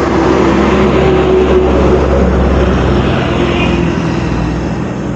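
A motor vehicle with a deep engine hum passing close along the road. It is loudest about two seconds in, then fades away.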